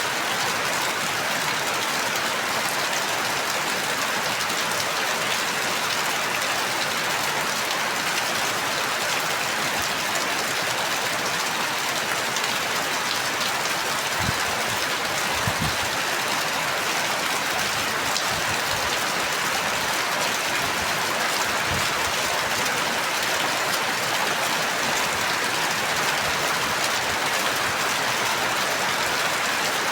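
Steady rain falling, a dense even patter of raindrops. A few soft low thumps come through in the middle.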